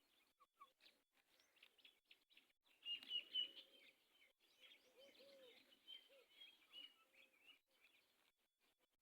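Faint chirping of birds, many short high chirps coming thickest from about three to seven seconds in, with a few soft low calls around five seconds in.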